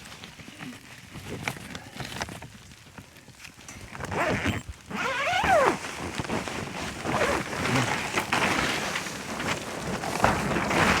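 A tarp canopy being handled and pulled back: scattered rustles and crackles for the first few seconds, then louder steady rustling and scraping from about four seconds in, with a short falling squeak a little after that.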